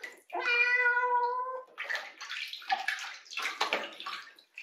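Wet kitten giving one long, loud, steady meow of protest at being bathed, starting about half a second in. Water then splashes and sloshes in the sink as it is washed.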